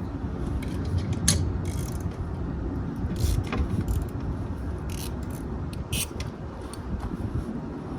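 Hand tool working the axle nut off an aircraft main wheel: irregular metallic clicks and taps as the nut is undone.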